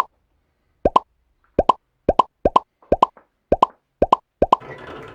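A run of identical bloop sound effects, each a quick double plop that rises in pitch, about two a second. Near the end it gives way to the rattle of wooden balls rolling down a wooden marble-run track.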